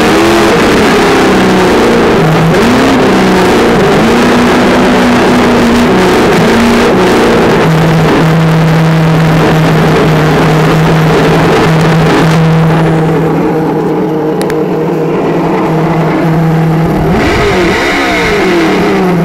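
Traxxas Slash 2WD RC truck running on asphalt: the whine of its brushed electric motor rises and falls with the throttle over rushing tyre and wind noise. After about eight seconds the whine settles into a steady hum, and partway through the rushing noise fades away.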